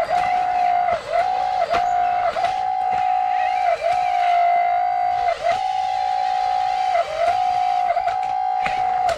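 The small electric motor of a radio-controlled construction machine whines at a steady high pitch. About eight times it sags briefly in pitch and level, as load comes on, before recovering, with faint clicks alongside.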